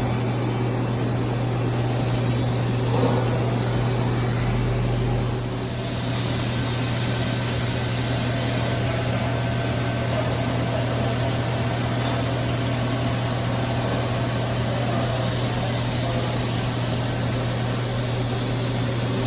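Ganesh Cyclone 32CS CNC Swiss-type lathe running with a steady mechanical hum, dipping briefly about six seconds in.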